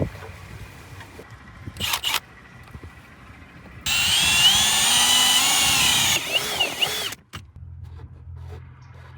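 A small power tool runs loudly for about two seconds with a wavering whine, after a short burst of noise earlier; after a brief cut it gives way to a low steady hum.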